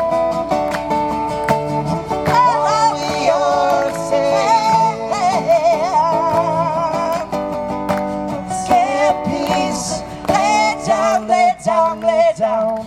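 Live singing with vibrato over strummed acoustic guitar. The voice comes in about two seconds in, with long held, wavering notes.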